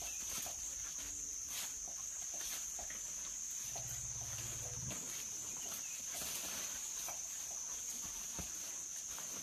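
Outdoor ambience: a steady high-pitched drone with scattered soft scuffs and rustles as elephants move around among bunches of green bananas. A brief low hum comes in near the middle.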